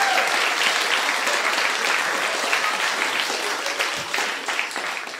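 Audience applauding, a dense run of hand claps that dies away near the end.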